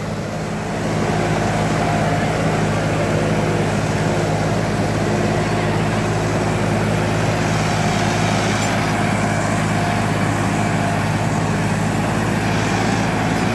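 Sonalika DI 35 tractor's diesel engine running steadily under heavy load while pulling a 17-disc harrow through the soil. It gets slightly louder about a second in.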